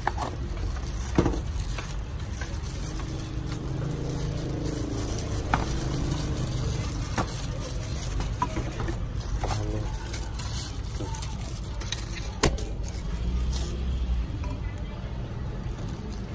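Plastic packaging rustling, with a few sharp clicks, as parts of a boxed motorcycle mirror kit are handled, over a steady low rumble.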